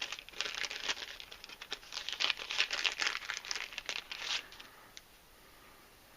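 Plastic packaging crinkling and rustling as a new part is taken out of it, in a dense run of sharp crackles that stops about four and a half seconds in.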